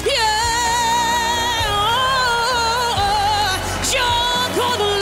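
Female singer holding long, high notes with wide vibrato, leaping between pitches a few times, over instrumental backing.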